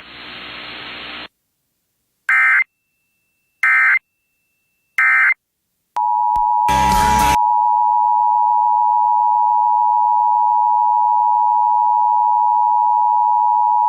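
Emergency Alert System tones: after a moment of hiss, three short bursts of data tone sound about a second and a half apart, the end-of-message code. About six seconds in, the steady two-tone attention signal starts and holds, with a brief burst of static just after it starts.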